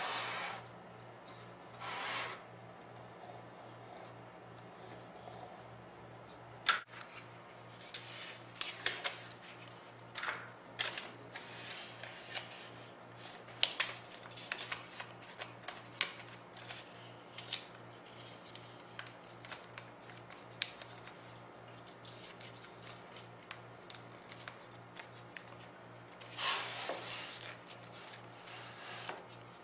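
Hand work on wood: short scraping strokes near the start and again near the end, with many small clicks and taps of wooden pieces being handled in between. A steady low hum runs underneath.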